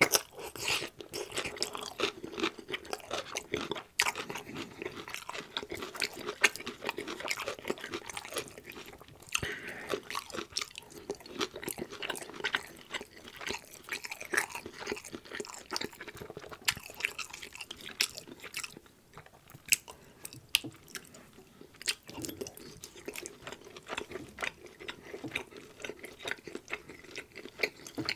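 Close-miked chewing: wet, smacking mouth sounds and bites of meatballs in gravy and green beans, with short clicks of a fork on the food.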